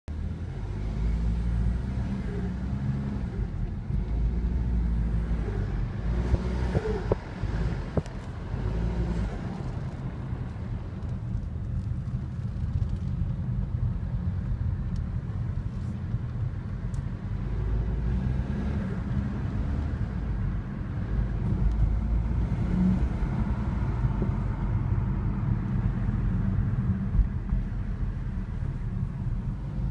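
BMW 320d F31 diesel car running with a steady low rumble, recorded to capture a strange noise that the owner cannot identify.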